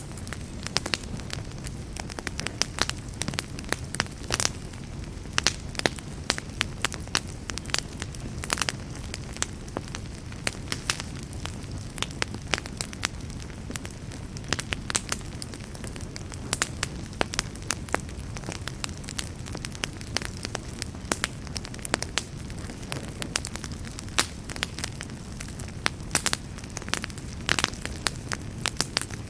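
Wood fire burning in a fireplace: a steady low rumble of flames with frequent irregular sharp crackles and pops.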